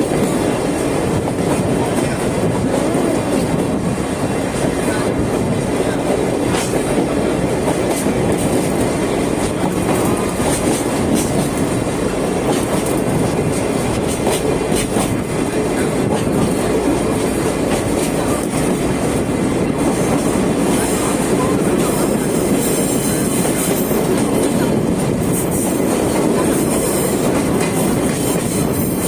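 Sagano Romantic Train carriage running on its rails, heard from aboard: a steady rumble with the clickety-clack of wheels over rail joints and scattered clicks.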